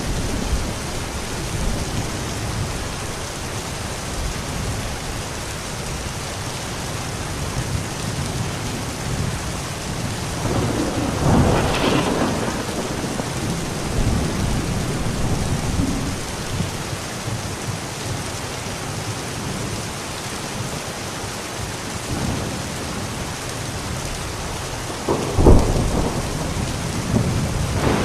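Steady heavy rain under a thunderstorm, with low rolling thunder throughout. A louder roll of thunder swells about eleven seconds in, and a sharp thunderclap near the end is the loudest moment.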